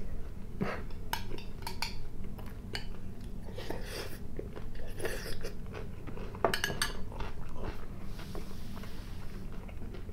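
Metal spoon clinking and scraping against a glass salad bowl in a series of short, scattered clicks, mixed with close-miked chewing and mouth sounds.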